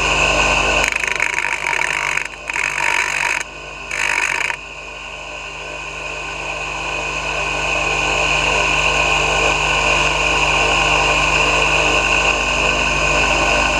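Electric machine running steadily with a constant high whine, spinning a rewound vacuum-cleaner motor armature for balancing. A harsh rushing noise comes and goes three times in the first few seconds, and the running grows a little louder around the middle.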